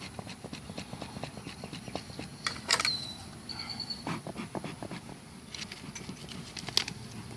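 A dog panting quickly and evenly, about four breaths a second. There is a sharp click a little under three seconds in, followed by a short high-pitched tone.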